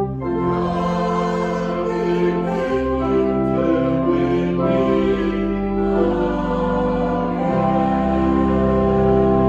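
Slow instrumental church music: sustained chords that change every second or two.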